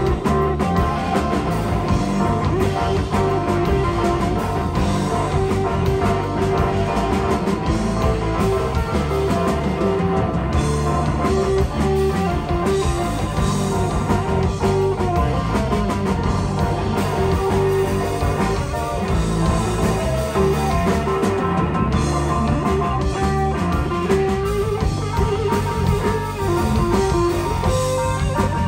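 Live rock band playing an instrumental passage: guitar over drums, continuous and loud.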